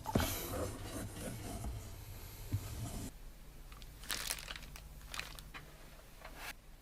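Packaging being handled and unwrapped: a dense run of crinkles and small knocks for about three seconds, then it suddenly drops quieter, with a few short rustles after.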